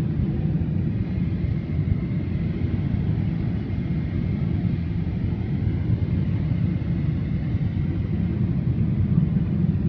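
Steady cabin noise of a Boeing 747-8 in flight: a constant low rumble of engines and rushing air heard from an economy seat, with a faint steady high tone above it.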